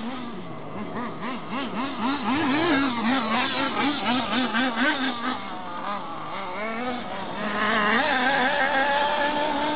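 Small nitro glow engine of an RC offroad buggy running on the bench, revving up and down about three times a second. Near the end it rises and holds a higher, steadier note.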